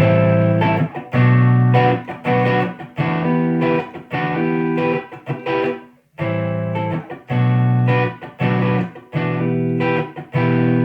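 Clean electric guitar: a 1954 Gibson Les Paul played through a 2011 Bludotone 80's Classic tube amp head with no overdrive, into an Electro-Voice 2x12 cabinet. A run of sustained chords, a short break about six seconds in, then more chords.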